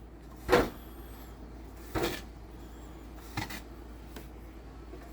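Slow footsteps crunching through deep snow, three steps about a second and a half apart.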